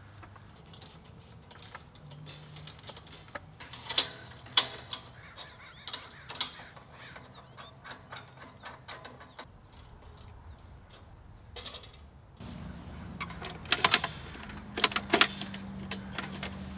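Metal clicks and clinks of a Snow Peak IGT camp table being assembled, with parts clamped and slotted onto its aluminium frame. A few sharp clicks come about four to six seconds in, and a denser run of clinks comes later.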